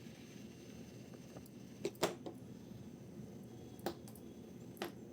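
A few light clicks and taps as small pocket-carry items are handled: a short cluster about two seconds in, then single clicks near four seconds and near the end, over a low steady room hum.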